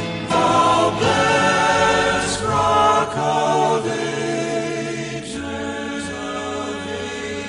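A male gospel vocal quartet sings in close harmony, moving from note to note about once a second. About five seconds in they settle on a long held chord that slowly gets quieter.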